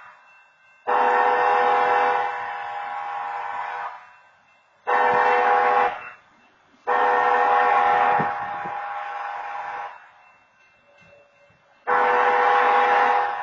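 Diesel locomotive air horn sounding a chord in separate blasts: a long blast, a short one, another long one, then a new long blast near the end. This is the long–long–short–long pattern for a grade crossing. Each long blast is loudest for about its first second, then eases off.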